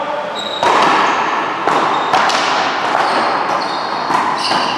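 A one-wall paddleball rally: sharp, echoing cracks of a paddle hitting the rubber ball and the ball striking the wall and floor, about one every half second to a second. Short high squeaks come in between.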